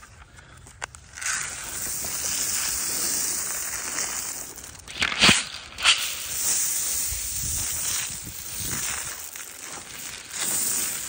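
Shelled corn pouring from a bucket and scattering over dry leaf litter: a steady rushing hiss that starts about a second in. Footsteps crunch in the dry leaves, with two sharp cracks about half a second apart midway.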